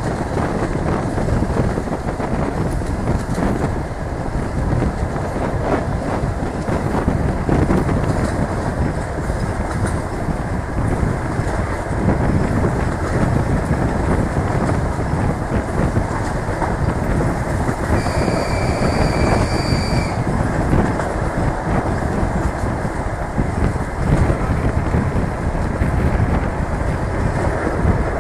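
DR1A diesel multiple unit running along the line, with steady rumble from wheels and running gear and irregular clicks and knocks from the rails. About two-thirds of the way through, a high steady tone sounds for about two seconds.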